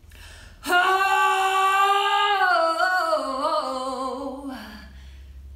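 A woman sings one long note that glides downward, roughened by a rattle effect: her soft palate flutters while she sings, making the tone waver. It starts just under a second in and lasts about four seconds.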